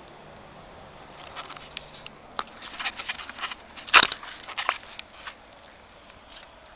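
Irregular crunching and crackling of footsteps in fresh snow for a few seconds, with one sharp knock about four seconds in.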